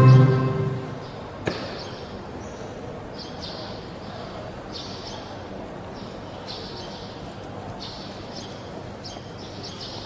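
Music ends within the first second, followed by a single sharp click. After that comes a steady outdoor background with short high chirps recurring every second or so.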